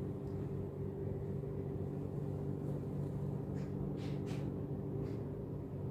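Steady low hum with a few held tones, unchanging throughout: the background room tone of a hotel room.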